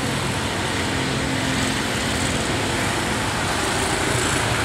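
Electric commuter train rolling slowly through a station: a steady running noise of wheels on rails with a low motor hum underneath.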